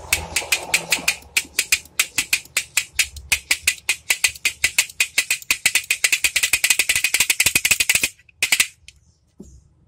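Handmade wooden toy pistol clacking as it is worked by hand: a fast ratchet-like rattle of sharp clicks that speeds up in the second half, stops about eight seconds in, then gives one short last burst.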